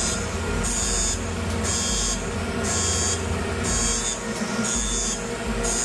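Smoke alarm sounding in a boiler room, giving a high-pitched beep about once a second while it is tested as a boiler safety cutoff. Under it, the boiler's low rumble falls away about four seconds in as the alarm shuts the boiler off.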